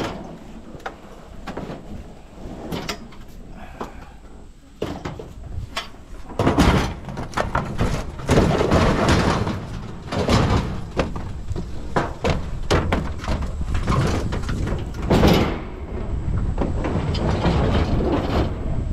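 Old electric stove being lifted and slid into a pickup truck bed: its sheet-metal body scrapes over the tailgate and bed liner, with repeated knocks and clanks, heaviest in the middle stretch.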